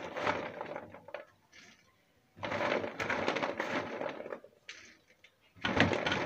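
Peeled peanuts rattling and clattering on a metal baking tray as hands scoop them up by the handful. The clatter comes in three bursts with short pauses between them.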